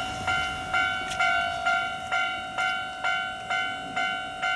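Railway level-crossing warning bell ringing, an even electronic ding repeating about twice a second.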